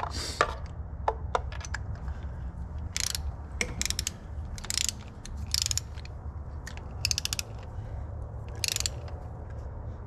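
Ratcheting torque wrench on an extension, tightening new spark plugs to 18 ft-lb. Several short runs of rapid pawl clicks come as the handle swings back and forth.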